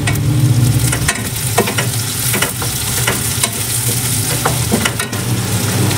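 Sliced onions and green chillies sizzling in butter in a steel pan, stirred with a spatula that scrapes and taps against the pan many times at an uneven pace, over a steady low hum. The onions are being lightly sautéed to take off their rawness.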